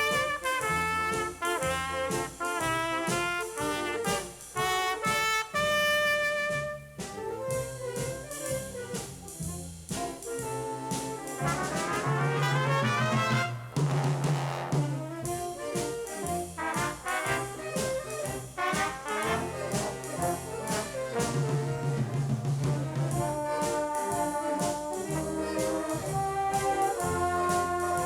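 Junior high school stage band (jazz big band) playing, with trumpets and trombones to the fore over held chords and a bass line. About halfway through, a quick rising run of notes sweeps up.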